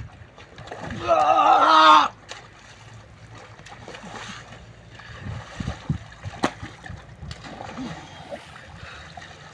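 A loud shout lasting about a second, a second into the sound, then splashing and sloshing of river water as people struggle while standing waist-deep in it.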